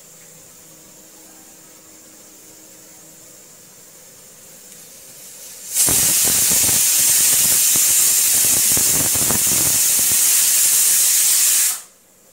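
Pressure cooker venting steam through its whistle weight: a loud, steady hiss that starts suddenly about halfway through, lasts about six seconds and cuts off sharply, the sign that the cooker has come up to pressure.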